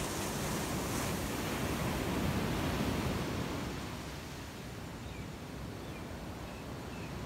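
Sea surf washing onto a sandy beach: a steady rush of waves that swells about two seconds in and then eases off.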